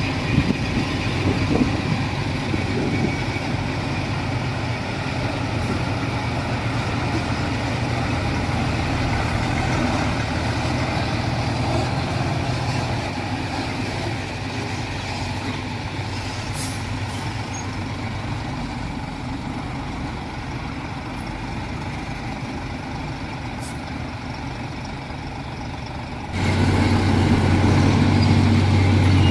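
Heavy diesel engine of earthmoving machinery, a bulldozer or dump truck, running steadily under work. It jumps abruptly louder near the end.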